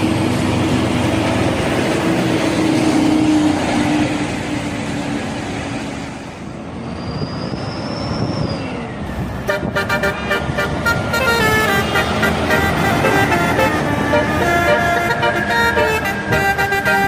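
Bus engine and road noise, then from about nine seconds in an Indonesian bus 'telolet' musical horn plays a tune of quickly changing notes.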